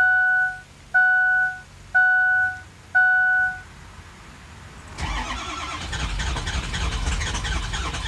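Dashboard warning chime sounding four times, about once a second. Then, about five seconds in, the starter cranks the 2007 Ford 6.0 L Power Stroke V8 diesel, which turns over steadily without firing.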